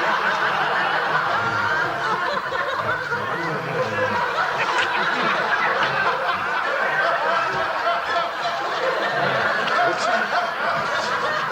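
Studio audience laughing in one long, sustained laugh of many voices.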